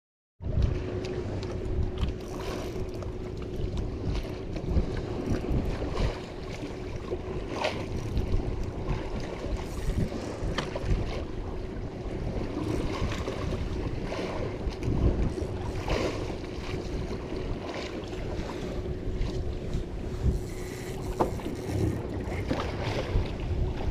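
Wind on the microphone and water around a small fishing boat at sea, over one steady hum, with scattered knocks and clicks throughout.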